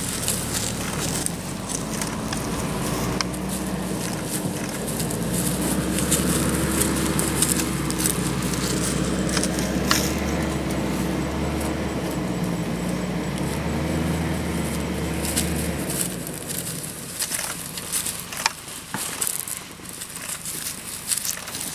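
A vehicle engine running steadily at idle, cutting off about three-quarters of the way through. Over it and after it, lions' paws crackle through dry grass and twigs in scattered light clicks.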